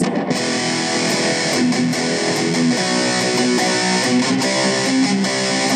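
Dean Razorback electric guitar played as a run of single notes that change every fraction of a second, going up the neck from the open string toward the 12th fret. This is an intonation check after the saddles have been reset.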